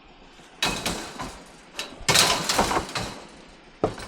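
Table and chairs being picked up and handled for loading as scrap: a knock, then about a second of clattering and scraping, and a sharp knock near the end.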